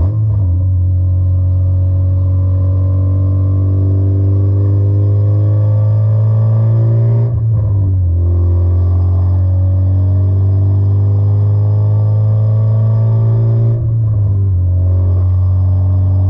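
K24-swapped Acura Integra's four-cylinder engine pulling under acceleration, its pitch climbing slowly through each gear. There are upshifts about 7 and 14 seconds in, where the pitch drops and starts climbing again.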